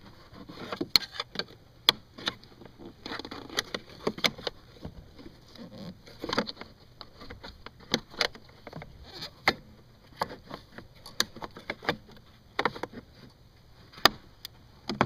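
Irregular clicks, taps and rubbing of a hand working the plastic retaining clips of a car's cowl cover under the windshield.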